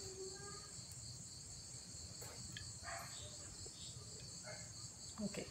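Steady, high-pitched chirring of an insect chorus, with a few faint clinks of a steel spoon on a ceramic plate as curry is served onto it.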